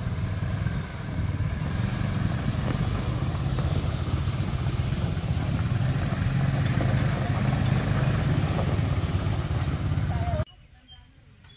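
Quad bike (ATV) engines running as they are ridden slowly, a steady low engine hum that cuts off suddenly near the end. Faint bird chirps follow.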